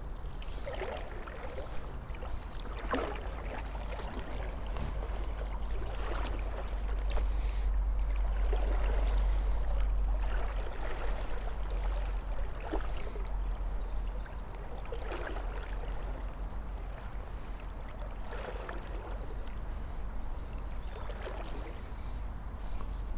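River water sloshing and lapping in short swishes every couple of seconds, over a steady low rumble.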